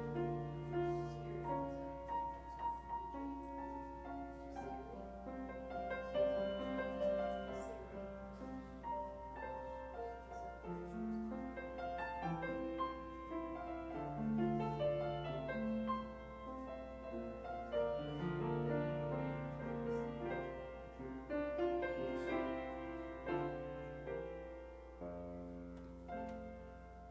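Slow instrumental keyboard music: held chords under a moving melody, with a low steady hum underneath.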